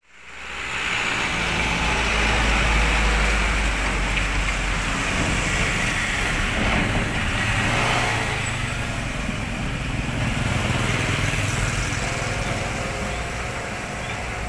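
Road traffic crossing a railway level crossing: a pickup truck and motorcycles drive past, their engines running with a low rumble.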